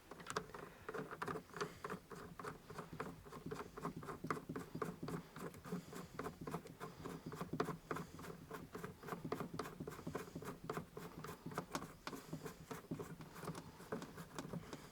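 Hand screwdriver turning a screw in to fasten a car door trim panel: quick, faint, irregular clicks and scratches, several a second.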